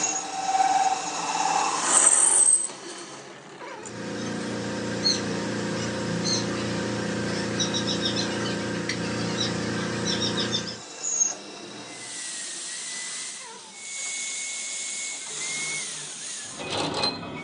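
Workshop machine noise: an electric machine motor runs with a steady hum for about seven seconds, with light metallic ticks over it, and a sharp knock comes near the end.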